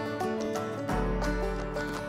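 Background music: a quick tune of short notes over a bass line.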